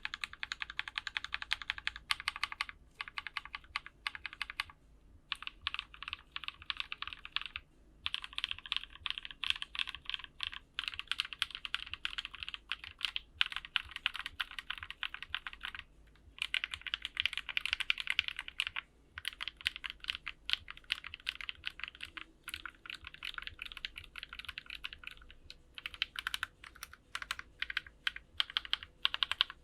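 Fast, continuous typing on a plateless, foamless custom mechanical keyboard with lubed and filmed Halu Cream linear switches (HaluHalo housings with NovelKeys Cream stems). A dense run of keystrokes, broken by short pauses every few seconds.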